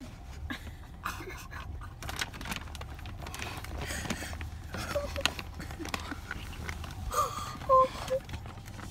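A child's crying breaths, gasps and sniffles, over the steady low rumble of a car cabin, with a few short high whimpers near the end.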